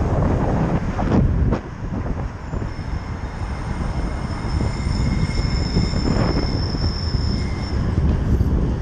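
Wind rumbling on the microphone of a moving bicycle, with a couple of knocks about a second in. A thin, high steady squeal is held from a few seconds in until near the end.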